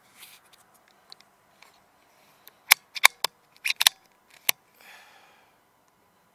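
A quick run of seven or eight sharp mechanical clicks over about two seconds, starting near the middle, as the rifle is handled and swung off target, followed by a short soft rustle.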